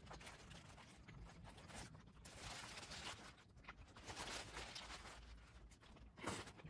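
Quiet eating noises: a fast-food burger handled in its paper wrapper and chewed, in irregular rustling patches, with one short louder noise near the end.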